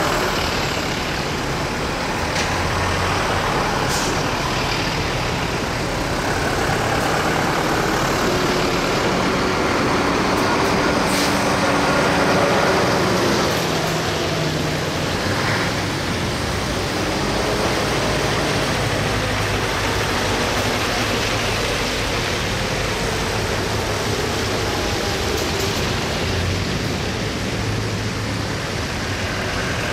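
A convoy of military trucks and light utility vehicles drives past one after another, engines running and tyres hissing on a wet road, with a couple of short sharp sounds around 4 and 11 seconds in.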